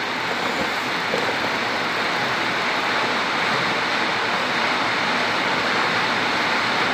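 Steady, even hiss with no pitch or rhythm, unchanging throughout.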